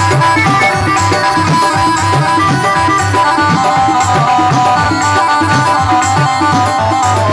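Instrumental opening of a devotional bhajan: tabla plays a rhythm under a melody of held notes over a steady low drone.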